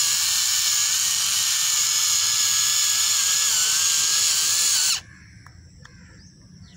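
Small electric motor of a homemade wired toy tractor whining steadily as it drives, the pitch wavering slightly; it cuts off suddenly about five seconds in.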